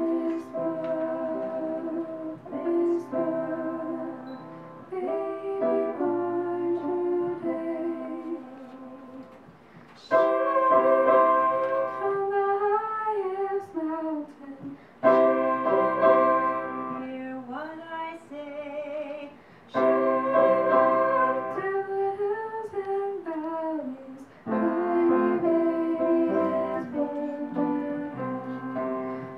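A woman singing a slow song into a microphone, with piano or keyboard accompaniment. The singing is loudest from about ten seconds in, in phrases with short breaths between them.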